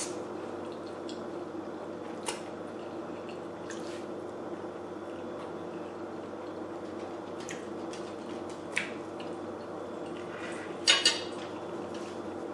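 A person eating pasta close to the microphone: a few short, sharp clicks and wet mouth sounds scattered through, the loudest a quick pair near the end, over a steady background hum.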